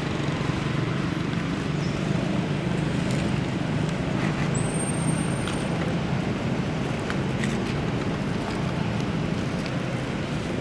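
Steady low rumble of road traffic, with a few faint clicks and one brief high whistle about halfway through.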